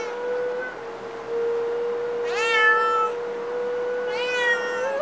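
A cat meowing twice, about two and four seconds in, over a wooden flute holding one steady note.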